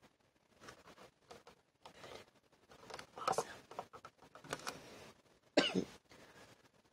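A woman coughing and clearing her throat in several short bouts, the sharpest cough about a second before the end.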